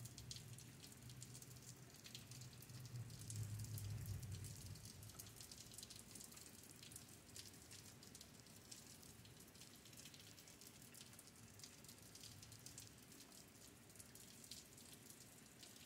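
Faint rain falling, with many scattered drops ticking and dripping. A low rumble swells about three seconds in and fades a couple of seconds later.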